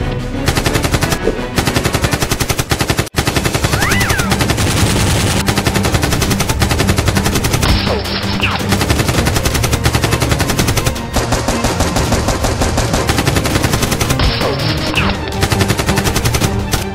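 Rapid automatic-gunfire sound effects firing in long continuous bursts, with a brief break about three seconds in, over action background music.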